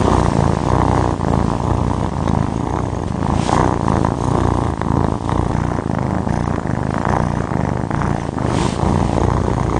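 Kitten purring while being stroked: a loud, steady, low rumble.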